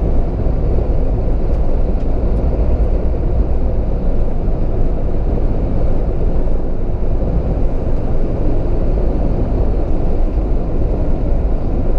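Steady road and engine noise inside the cabin of a Mahindra Thar with its 2.0-litre turbo-petrol engine and automatic gearbox, driving at speed: an even low rumble with no whistle heard. The wind whistle the owner had complained of at about 100 km/h has been fixed.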